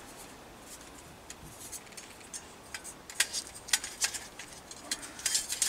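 Light metal clicks and clinks as the stainless steel parts of a collapsible wood-burning camp stove are handled and fitted together, the top section set onto the twig-filled body. The clicks come scattered and irregular, busier in the second half.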